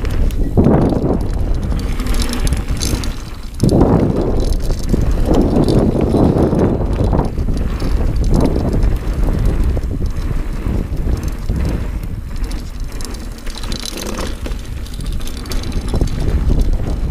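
Dartmoor Primal 29er hardtail mountain bike riding fast down a dry dirt trail, its knobby tyres rolling and skidding over dirt and leaves in uneven surges. Wind rumbles steadily on the camera microphone.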